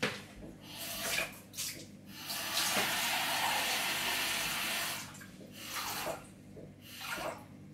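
Water from a kitchen tap running into a measuring jug, one steady run of about two and a half seconds in the middle, with shorter spurts of water before and after.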